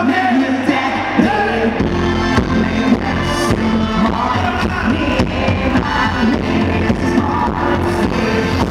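Live pop band playing on a concert stage, with some singing over the music, recorded from among the audience.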